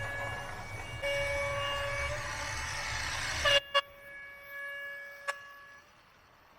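A horn sounding in long, steady blasts over a low rumble. About three and a half seconds in, the rumble cuts off suddenly with two sharp clicks, and a fainter horn tone fades away.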